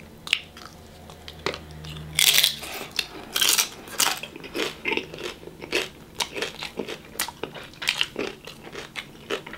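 Close-miked biting and chewing of a taco: a run of short crunching and mouth-click sounds, thickest from about two seconds in.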